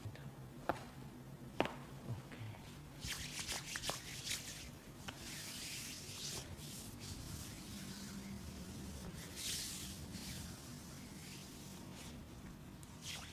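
Hands rubbing and stroking over skin in a massage: repeated soft swishing strokes that swell and fade. Two sharp clicks come in the first two seconds.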